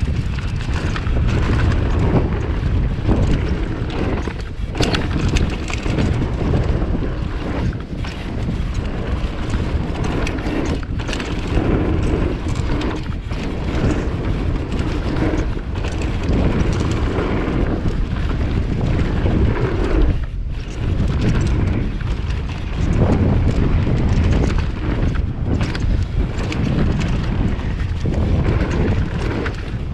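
Wind rushing over the microphone of a mountain bike rider on a dirt trail, over the bike's rattle and frequent knocks from bumps.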